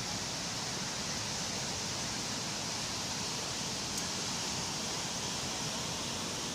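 Steady, even wash of calm sea waves on a beach, with no separate breaking surges. A faint click about four seconds in.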